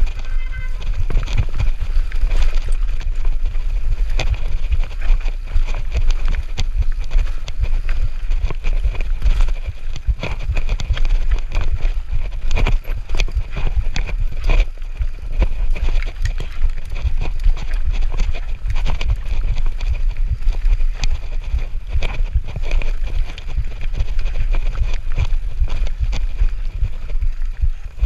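Enduro mountain bike descending a rough dirt and rock trail: tyres running over the ground, with a constant clatter of sharp knocks and rattles from the bike over bumps, and heavy wind rumble on the microphone.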